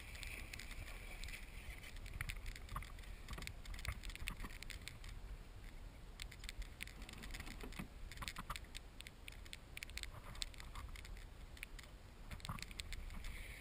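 Water splashing and lapping against a fishing kayak's hull, with irregular small clicks and knocks, over a steady low wind rumble on the microphone.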